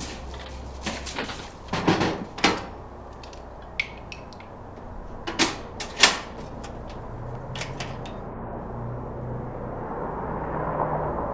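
Metal toolbox being handled on a wooden crate: a few clunks and knocks, with a pair of them about two seconds in and a louder pair about six seconds in.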